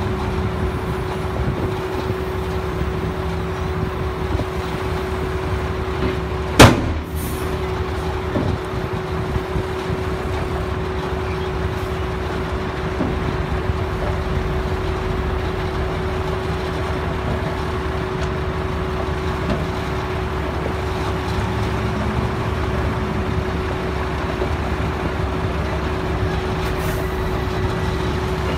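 Heavy dump trucks' diesel engines running steadily with their tipper bodies raised, a dense low drone with a constant hum over it. A single sharp bang about a quarter of the way in is the loudest sound.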